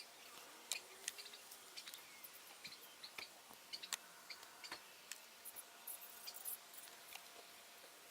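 Faint, irregular crackling and ticking: coil cleaner fizzing as it dissolves the gunk on refrigerator condenser coils.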